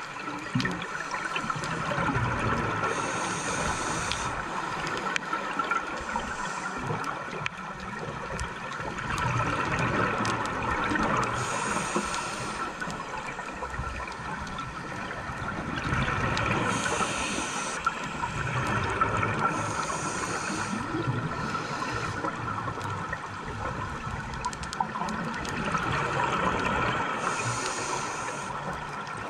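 Underwater sound of a scuba diver breathing through a regulator: a steady gurgling and bubbling, with a short burst of hiss every few seconds.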